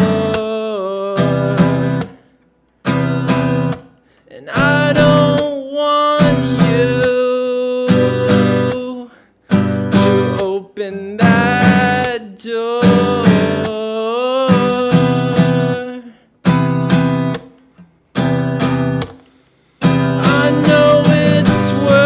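A man singing while strumming chords on an acoustic guitar. The playing breaks off into short silences about seven times, then picks up again.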